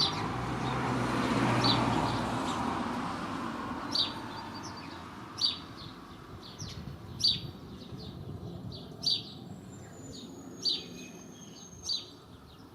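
A bird chirping over and over, one short sharp chirp about every one and a half to two seconds. A rushing noise swells and fades in the first two seconds.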